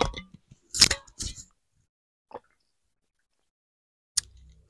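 A person drinking water: a few short wet sips or gulps in the first second and a half and a faint one a little later, then a click near the end.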